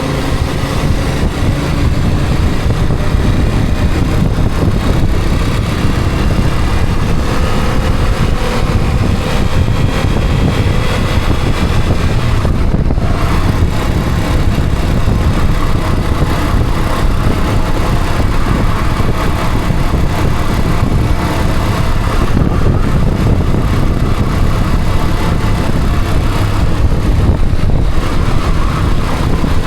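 A motor vehicle driving along, with steady engine and road noise and the engine pitch drifting gently up and down.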